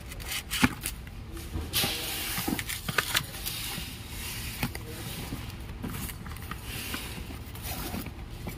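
A cardboard box being opened and handled: the flaps rustle and scrape, with a few light knocks and clicks scattered through.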